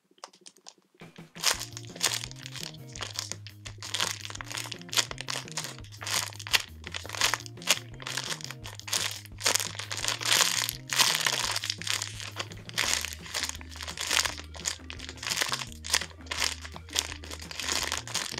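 Clear plastic packaging bag crinkling as a bagged bear-bun foam squishy is squeezed and turned in the hands, over background music with a stepping bass line. Both start about a second in.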